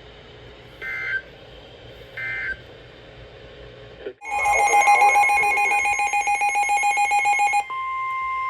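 NOAA Weather Radio Emergency Alert System activation for a severe thunderstorm warning. First come two short warbling bursts of the SAME digital header about a second and a half apart. About four seconds in, a receiver's loud, rapidly pulsing alarm starts, and it gives way near the end to the steady 1050 Hz warning alarm tone.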